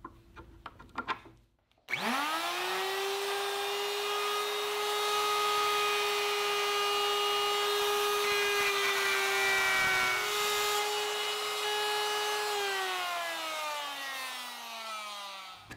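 Plunge router with a straight bit and template guide, preceded by a few light clicks as the depth stop is set. It starts up with a fast rising whine and runs at a steady high pitch while it cuts a hinge mortise into a wooden door edge, the pitch sagging briefly about nine seconds in. It then winds down with a falling whine after being switched off.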